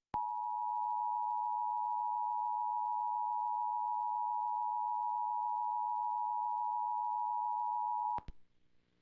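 Emergency Alert System attention signal: the steady two-tone alert (853 and 960 Hz sounded together) held for about eight seconds, starting and ending with a click. It marks the start of an EAS message, here a Required Monthly Test.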